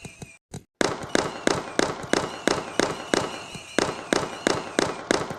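Fireworks going off in a rapid string of sharp bangs, about four a second, starting abruptly just under a second in, with a thin high whistle running through them.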